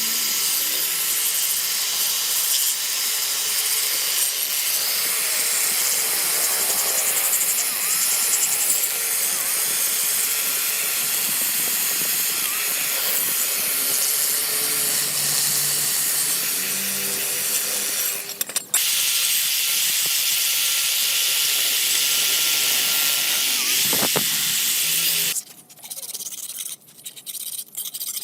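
Electric grinder working on the steel hoe head: a steady hissing grind of abrasive on metal, with a motor whine that dips now and then under load. It stops for a moment around 18 seconds in and cuts off near the end.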